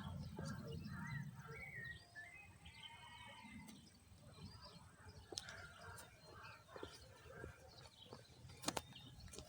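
Animal calls: short chirps and a wavering call, with scattered sharp clicks. A low rumble fades out about two seconds in.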